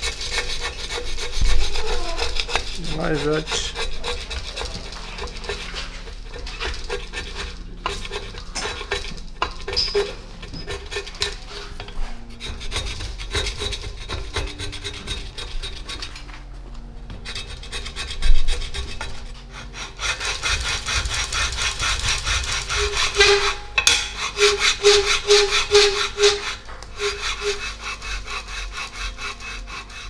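A flat scraper blade is worked back and forth across a metal mounting plate, scraping yellow paint off the bare face in repeated rasping strokes. The strokes come faster and louder in the last third.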